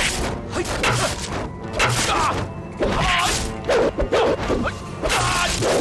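Kung fu fight sound effects: a rapid series of swishing blows and wooden thwacks from a bamboo staff, with short shouts from the fighters, over dramatic background music.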